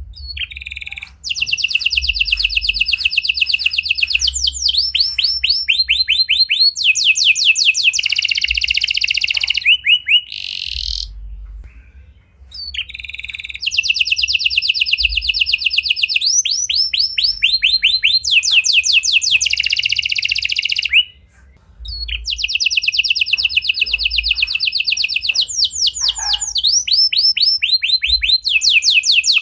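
Red-factor domestic canary singing long strings of fast trills, each a rapid run of the same high note repeated. The song breaks off briefly about a third of the way in and again about two-thirds in.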